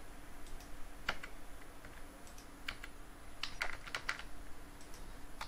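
Computer keyboard keys clicking in scattered single presses and short pairs, about a dozen in all, as code is edited. A faint steady hum runs underneath.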